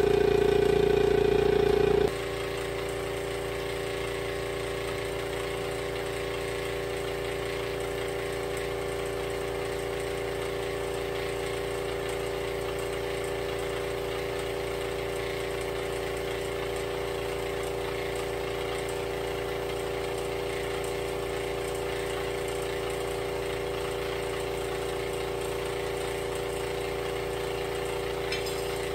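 Air compressor running with a steady hum. It is louder for about the first two seconds, then drops to a lower, even level for the rest.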